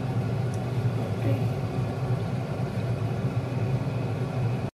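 Steady low machine hum, like a motor running, with a faint click about half a second in; it stops abruptly near the end.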